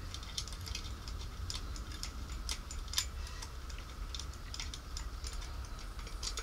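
Irregular light metallic clicks and taps, with one sharper click about halfway through, as a gloved hand works the parts inside the open crankcase of a Shindaiwa EG16 generator engine.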